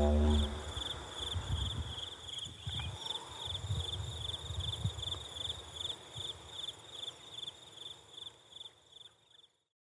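Crickets chirping in a steady pulsed rhythm, about three chirps a second, over low gusts of wind rumble. The ambience fades out near the end.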